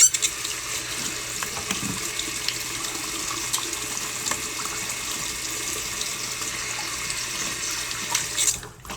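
Water running steadily from a tap into a sink as hands are washed, shut off abruptly about eight and a half seconds in.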